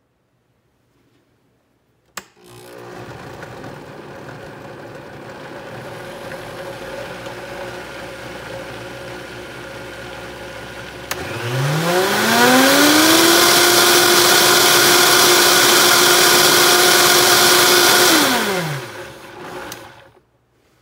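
High-speed countertop blender blending a thick frozen-banana smoothie. It is switched on with a click about two seconds in and runs at low speed. About eleven seconds in it is turned up, its motor whine rising steeply to a loud steady high speed, then it winds down and stops near the end.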